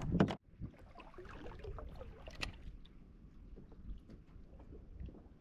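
A short loud burst right at the start cuts off suddenly. Then comes quiet water lapping against a plastic kayak hull, with light wind on the microphone and scattered small clicks and knocks.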